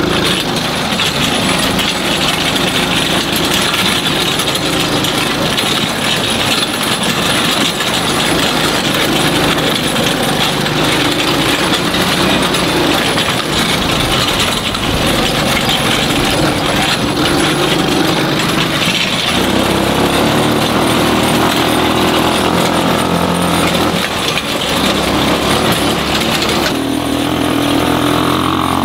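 Small engine of a kids' ride-on tractor running steadily under load while it pulls a homemade plow through dirt. Its note changes abruptly about two-thirds of the way through.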